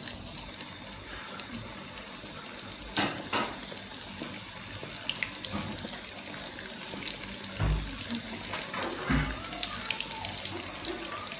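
Chicken pieces sizzling and crackling as they deep-fry in hot oil in a karahi on a low flame, with a few louder spurts of sizzle and knocks as more pieces are dropped in by hand.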